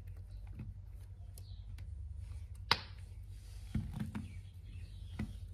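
Squigz silicone suction-cup toy pieces being handled and pressed together: scattered light taps and clicks, the sharpest one a little before halfway, with a few more about two-thirds of the way in.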